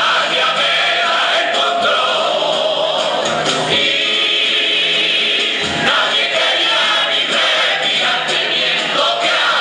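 A Cádiz carnival comparsa, a chorus of men, singing together with Spanish guitar accompaniment.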